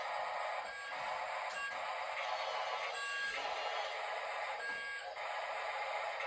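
Small remote-control toy truck's electric motor and gearbox whirring steadily as it drives.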